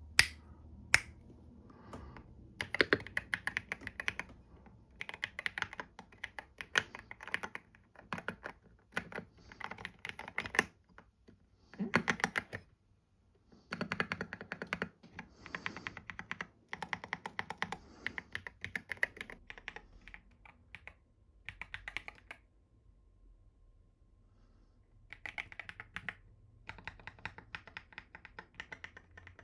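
Typing on a Hummingbird 68 mechanical keyboard: runs of quick key clacks in bursts of a second or two, broken by short pauses. There are two sharp, louder single clacks right at the start.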